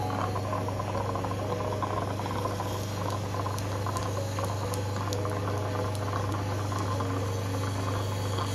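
Dental suction tube drawing fluid from the mouth: a steady low hum with a bubbling hiss, and a few faint clicks.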